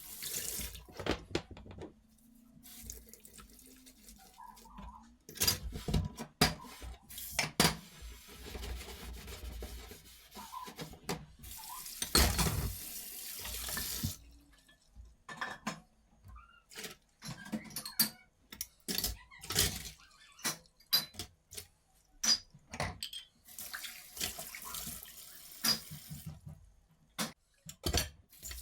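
Kitchen sink tap running in several short bursts, water splashing into the sink, with frequent knocks and clatter of things being handled between and during the bursts.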